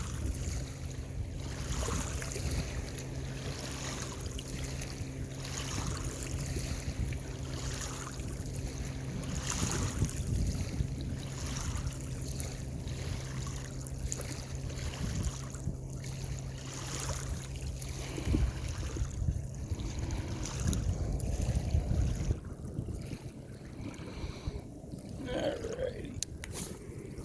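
Wind buffeting the microphone over lapping lake water, with a steady low hum that stops about 18 seconds in.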